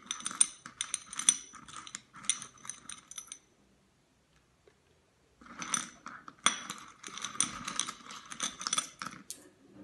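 Small smooth pebbles clicking and rattling against one another as a hand rummages through them and picks some out, in two spells of rapid clicks with a short pause between.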